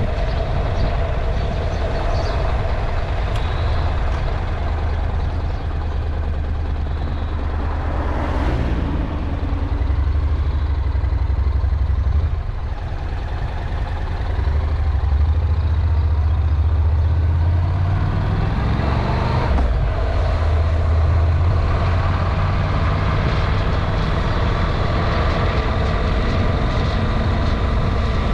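A vehicle's engine running while under way, with wind rush on the microphone. The engine note swings in pitch about eight seconds in and again around nineteen seconds.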